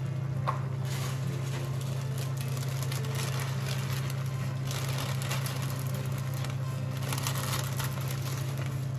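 Plastic bag crinkling as dry noodles are tipped out of it into a wok of simmering broth, in irregular bursts, over a steady low hum.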